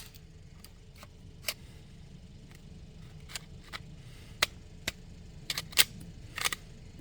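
Scattered sharp metallic clicks and light rattles of a pistol being handled after it failed to fire, about ten of them at irregular intervals, the loudest right at the start and another around two-thirds of the way through.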